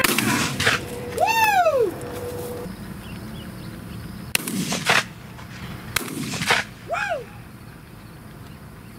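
Shotgun shots during a dove hunt: a sharp report right at the start, another about four and a half seconds in, and a third about a second later. Two short high cries that rise and fall come between them.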